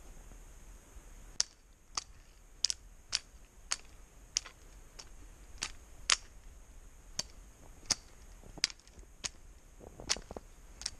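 Footsteps crunching through thin snow on the forest floor: sharp, crisp snaps at a walking pace, about one every half second.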